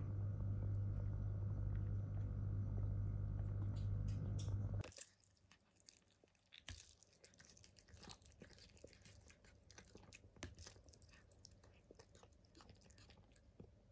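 A steady electrical hum from a kitchen appliance runs for about the first five seconds and cuts off suddenly. Then a cat eats chunks of wet cat food: faint, irregular chewing and smacking clicks.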